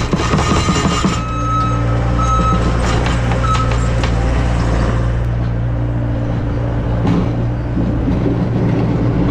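Manitou skid steer's naturally aspirated 69 hp Yanmar diesel engine running hard under load. A high hydraulic whine comes and goes over the first few seconds, with a few knocks near the start.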